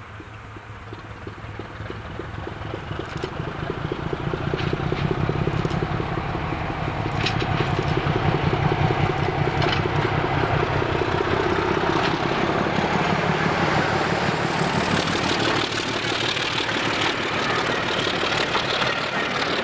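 Diesel locomotive approaching under power and passing close by, its engine working hard with dark exhaust. The engine's low rumble grows steadily louder over the first several seconds. Near the end, the clatter and rumble of its coaches' wheels on the track take over.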